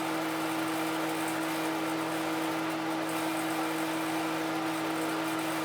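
A steady machine hum with a constant low pitch and an even rushing noise over it, unchanging throughout.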